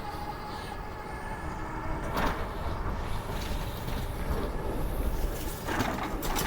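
Electric bike being ridden over bumpy ground: a steady low rumble of wind and rolling noise with a faint motor whine at the start, and short knocks about two seconds in and again near the end as the suspension takes bumps.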